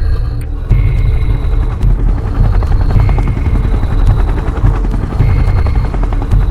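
Helicopter sound effect: rotor chopping steadily under a heavy low rumble, with a short high tone coming back every two seconds or so.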